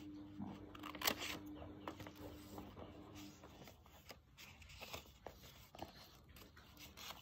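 Scissors snipping folded paper: a few faint separate snips with paper rustling between, the sharpest about a second in. A faint steady hum runs through the first half and stops a little after three seconds.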